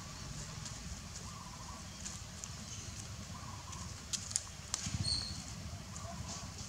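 Footsteps crunching and crackling on dry leaf litter over a steady low rumble, with a few sharper snaps about four to five seconds in.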